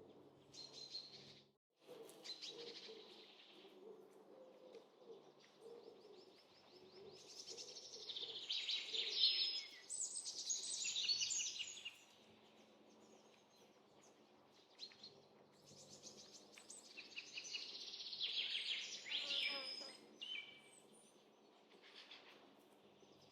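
Small songbirds chirping and trilling in quick high bursts, busiest about a third of the way in and again past the middle, over a faint steady background. The sound drops out briefly about two seconds in.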